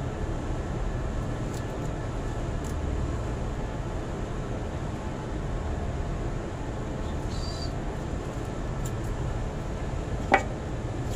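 Steady low mechanical rumble, like a nearby engine or machine running. About ten seconds in, a single sharp knock rises above it, as the wiring in the control box is handled.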